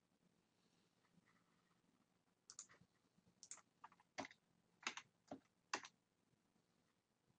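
Computer mouse and keyboard clicks: a run of about ten short, sharp clicks, starting about two and a half seconds in and stopping a little before six seconds.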